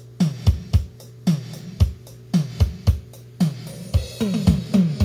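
Music from a cassette playing on a JVC KD-V44 deck through loudspeakers: a track opens with electronic drum hits that drop quickly in pitch, about two a second, coming faster near the end.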